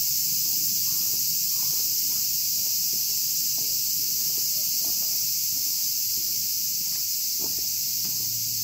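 A chorus of insects making a steady, high, unbroken buzz.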